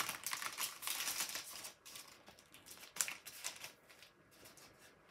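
Crinkly rustling and light clicks of a clear photopolymer stamp sheet and card being handled on a desk, busiest in the first two seconds, with a sharper click about three seconds in.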